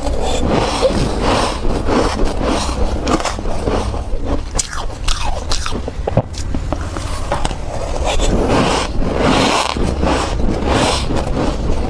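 Close-up biting and crunching of soft white ice chunks, a continuous run of crisp, crackling crunches.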